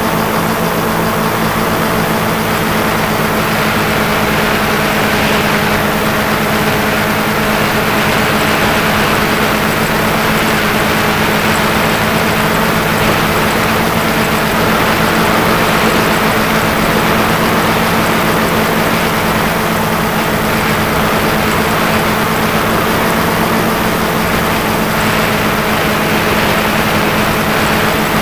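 Multirotor drone's motors and propellers, a steady hum with an even rushing noise, heard close up from the camera it carries.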